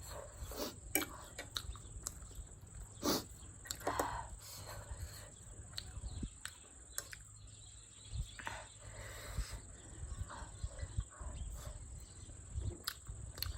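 A person eating close to the microphone: chewing and mouth sounds with scattered light clicks, over a steady high-pitched hiss.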